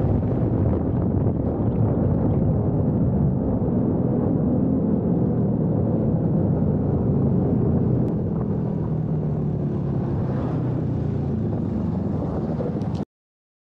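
Motorcycle engine running under way at road speed, with wind rushing over the action camera's microphone; it eases a little about eight seconds in and cuts off suddenly near the end.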